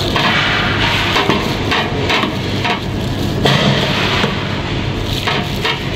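Metal serving spoon scraping and scooping cooked rice in a stainless steel serving pan, in repeated strokes, over a steady low hum.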